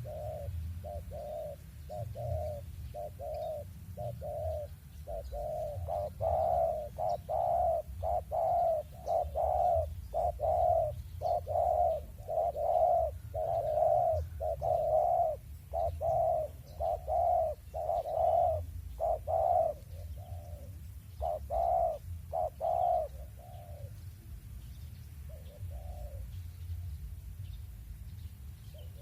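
Spotted dove cooing in a long run of short, repeated coos, about two a second. The coos grow louder about six seconds in and trail off into a few scattered notes near the end.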